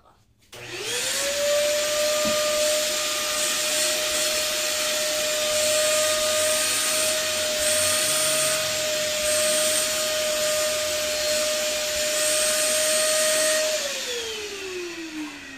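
Vacuum cleaner with a hose, switched on: its motor whine rises quickly to a steady pitch over a loud rush of suction. Near the end it is switched off and the whine falls in pitch as the motor winds down.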